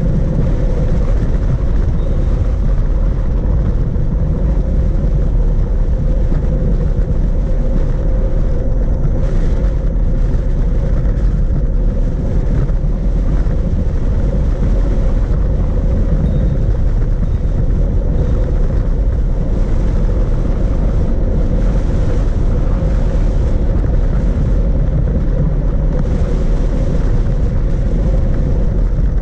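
A steady rush of wind on the microphone, with tyre rumble, from a Brompton folding bicycle coasting fast down an asphalt road. A steady low hum runs through it.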